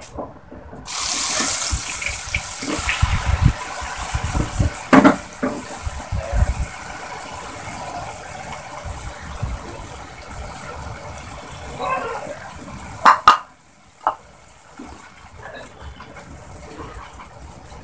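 Soaked rice tipped into hot oil in a marble-coated nonstick pot, sizzling loudly from about a second in as the rice is fried for khichuri, with a few knocks of the bowl and spoon against the pot. The sizzle drops off suddenly near the end while the rice is stirred.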